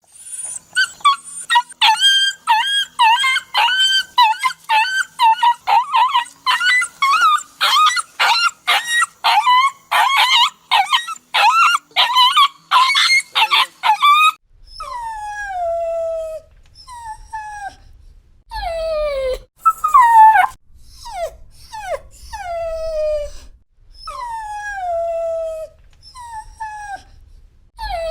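A dog crying: a quick run of short, high-pitched yelping cries, about two a second. About fourteen seconds in it changes to longer whimpering whines that each slide down in pitch.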